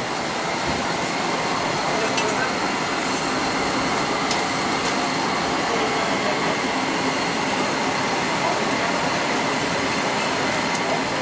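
Steady, even rushing noise with a faint high whine and a few light clicks.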